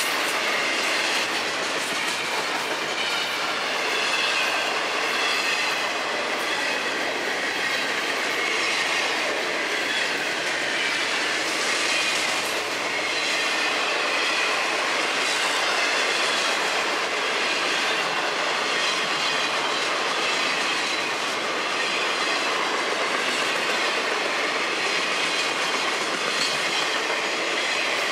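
Intermodal freight train's double-stack well cars and trailer flatcars rolling past: a steady rumble and rattle of steel wheels on the rails, with a faint, wavering high squeal of wheels against rail.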